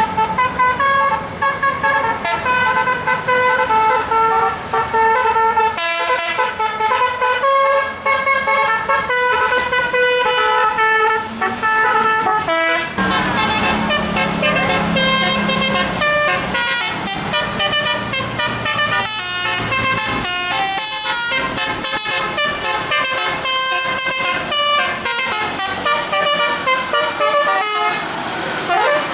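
Bus's Basuri musical multi-trumpet air horn playing a 'telolet' melody, a run of held notes stepping between pitches, with the notes crowding together in the second half.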